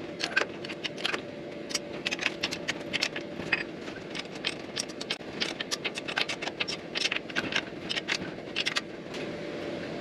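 Ratchet wrench clicking in quick runs of strokes as the bearing assembly bolts on a B&G pump are tightened in turn, with metal tool rattle against the bolts. A faint steady hum runs underneath.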